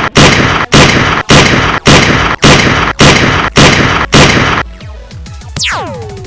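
Sound-effect blasts like gunfire or explosions, about nine of them, evenly spaced at roughly two a second and each cut off sharply. Then, near the end, electronic zaps falling steeply in pitch.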